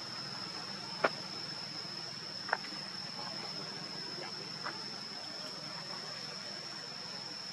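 Steady high-pitched insect drone over a faint outdoor hiss, broken by three short sharp clicks about one, two and a half, and four and a half seconds in, the first the loudest.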